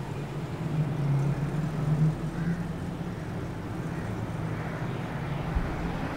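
Road traffic noise with a car engine running, a low steady hum that swells slightly in the first couple of seconds.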